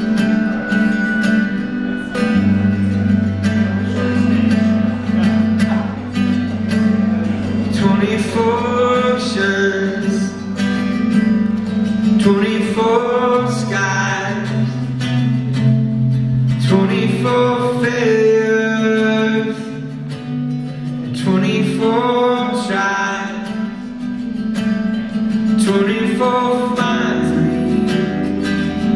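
Live rock band playing a slow song: guitar over sustained bass notes, with a male lead voice that comes in about eight seconds in and sings in phrases.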